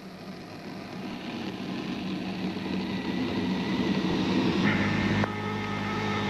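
Cockpit noise of a Tu-22 jet bomber: a steady rushing of engines and airflow that grows gradually louder. About three-quarters of the way in, an intercom or radio hum switches on with a click.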